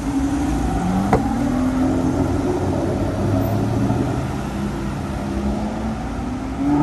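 Road traffic on a busy street: car engines passing and pulling away, their hum rising in pitch, with a short sharp knock about a second in.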